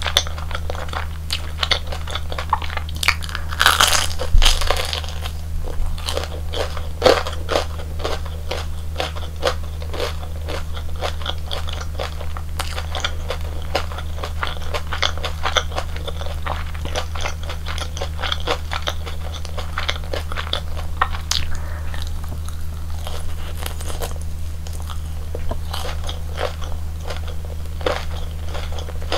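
Close-miked biting, crunching and chewing of crisp fried snack food, with a run of sharp crackles. The loudest bites come about four and seven seconds in. A steady low hum runs underneath.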